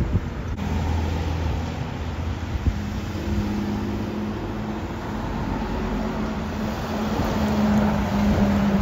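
IC CE school bus driving, heard from inside the cabin: a steady engine hum over road and rattle noise, growing a little louder near the end.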